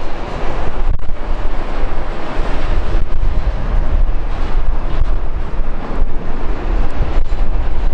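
Strong wind buffeting the microphone, a continuous rumble and hiss, over the jet engines of a Boeing 787-8 taxiing.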